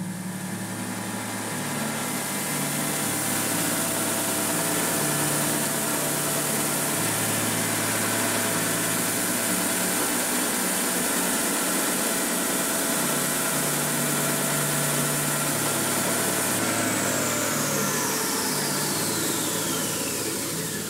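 Stationary edge belt sander and dust extraction running while a clamped block of wood samples is sanded against the belt. A steady noise with several steady whines; about three-quarters of the way through a high whine stops and a whine falling steadily in pitch follows.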